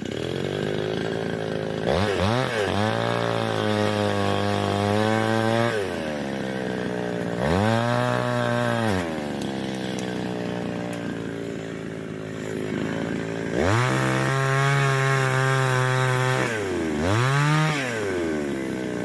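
Old two-stroke chainsaw running: it idles and is revved four times, twice held for several seconds and twice briefly, dropping back to idle between revs.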